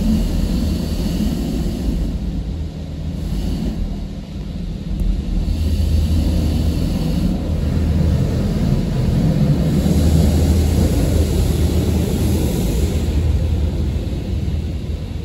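Automatic car wash spraying water over the car, heard from inside the cabin as a loud, steady rumble with a hiss.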